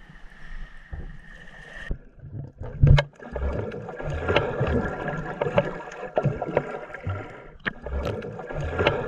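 Water sloshing and gurgling as a snorkeller wades into the shallows, then, from about two seconds in, the muffled underwater sound of a camera below the surface, with bubbling and knocks of water and movement against it.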